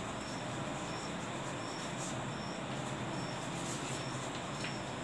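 Faint chalk writing on a blackboard over steady room hiss and low hum, with a faint high-pitched chirp repeating about twice a second.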